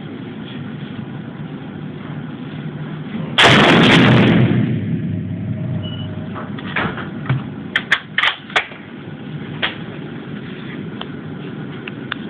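A single shot from a Remington 700 SPS Tactical bolt-action rifle in .308 Winchester with a Roedale compensator, about three seconds in: a very loud blast that overloads the recording and echoes in the indoor range. A few short sharp clicks follow some seconds later.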